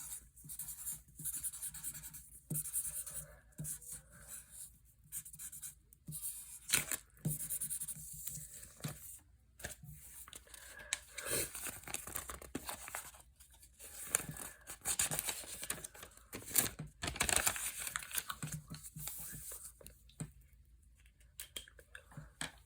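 Adhesive tape pulled off the roll and torn in short rasping strips, with paper rustling and crinkling as it is handled and taped.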